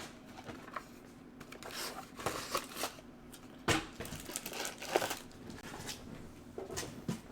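Plastic wrapping and foil booster packs crinkling and rustling as a card box is unpacked by hand, with two sharp knocks in the middle.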